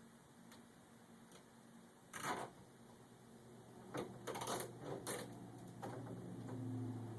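Hand-handling noises of an impulse band cable being wrapped around a pipe: a short scrape about two seconds in, then a cluster of sharp clicks and rustles a couple of seconds later, with a low hum building near the end.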